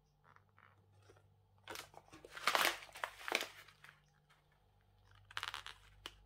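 Packaging being handled and opened, crinkling and crackling in two bursts, a longer one and then a shorter one near the end, with a few light clicks.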